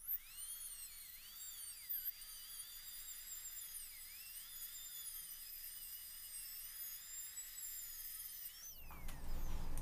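High-speed air-turbine dental handpiece with a burr whining at a very high pitch, dipping briefly in pitch a couple of times as the burr bites into bonding adhesive flash around a ceramic orthodontic bracket. Its pitch falls away as it spins down near the end.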